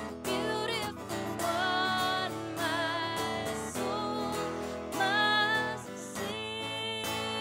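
A woman singing a worship song, with a wavering vibrato on her held notes, while accompanying herself on acoustic guitar.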